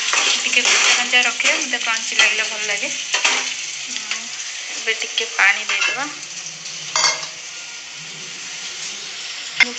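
Vegetables sizzling as they fry in a wok, with stirring.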